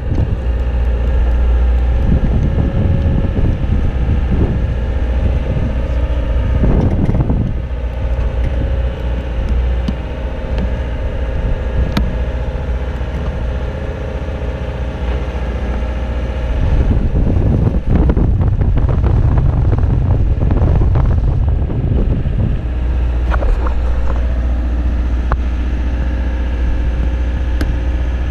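Wind buffeting the microphone and plastic sheeting flapping on the lift basket's rails, over the steady hum of a boom lift's engine. The wind rumble eases in the middle and picks up again after about 17 seconds.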